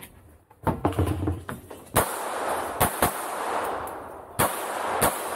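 Pistol shots in a string: several quick shots about a second in, then single shots about a second apart, each followed by a long echo.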